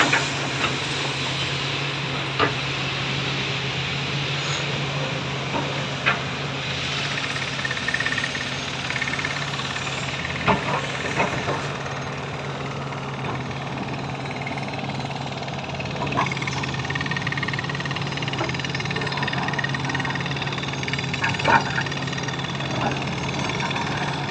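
Heavy diesel mining machinery running steadily, a constant low engine hum, with a few sharp knocks and clacks at irregular moments.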